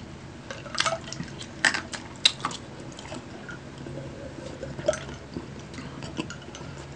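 A person drinking from a glass mug in long gulps: a series of short wet swallowing and liquid clicks, the loudest a little over two seconds in.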